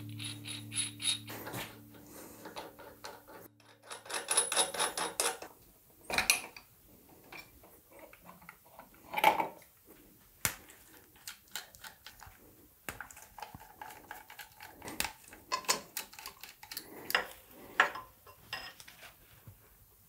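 Hand tools and metal motorcycle parts clinking, clicking and clattering as a BMW R80 is taken apart. The knocks and rattles are irregular, with a burst of dense clattering about four seconds in and a few sharper strikes later.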